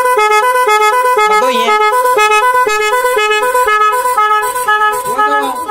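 Motorcycle's multi-tone musical horn sounding loudly, stepping rapidly back and forth between a few notes in a repeating tune, while its newly fitted wiring is tested; it cuts off sharply near the end.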